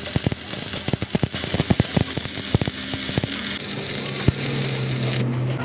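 Electric arc welding on steel: a dense run of crackling and popping spatter for the first three seconds or so, then a steady low hum.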